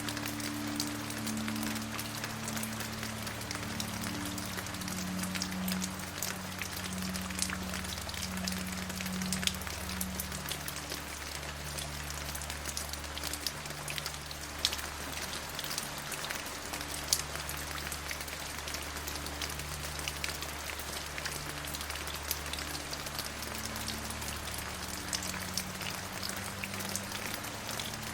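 Steady rain falling, with many sharp individual drop hits over an even hiss. Underneath runs a low drone of held tones that shift every few seconds.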